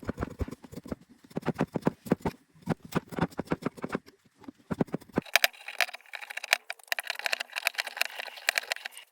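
A pocket knife cutting and shaving a pinewood handle: a quick, irregular run of short scraping and clicking strokes. About five seconds in the sound turns thinner and brighter while the strokes go on.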